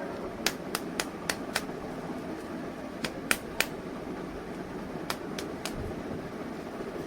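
Sharp clicks of plastic toy pieces being handled, in three quick runs of a few clicks each, over a steady background hum.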